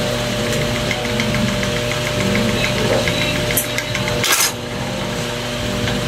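Electric motor driving a belt-driven snap button press, running with a steady hum. One sharp metallic clack comes about four seconds in.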